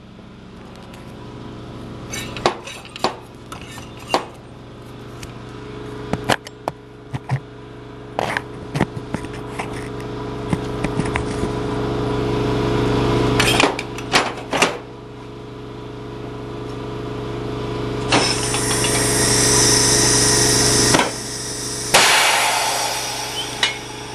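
Tire changing machine working a tire off an aluminum rim: a steady motor hum that grows louder and cuts off twice, with scattered metal clanks and knocks. Near the end come two loud bursts of air hissing.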